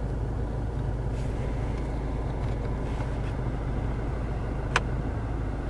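Volvo V70's 1.6-litre turbodiesel engine idling, heard from inside the cabin as a steady low hum. A single sharp click of a dashboard button near the end.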